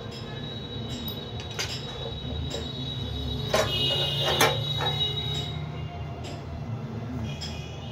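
Metal clicks and a high scraping squeal from hand-tool work on a cut-off machine's housing during disassembly, over a steady low hum. The squeal rises about halfway through and dies away a couple of seconds later.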